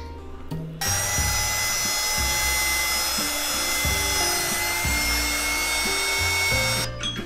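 Power drill with a paddle mixer stirring epoxy resin in a plastic mixing bucket: the motor starts about a second in, runs with a steady whine and stops near the end. Background music plays underneath.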